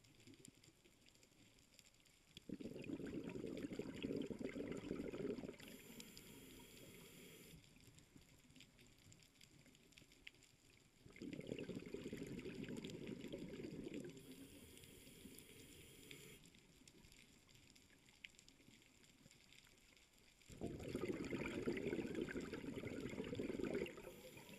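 Scuba diver's exhaled breath bubbling out of the regulator, heard underwater: three bubbling bursts of about three seconds each, roughly nine seconds apart, with quiet water noise between them.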